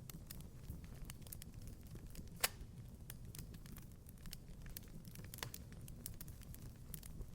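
Wood fire crackling in a fireplace: irregular small snaps and pops over a low steady rumble, with one sharper pop about two and a half seconds in.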